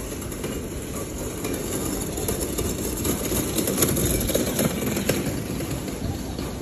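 Steady rumble and rattle of a moving vehicle, swelling a little about halfway through and easing off near the end.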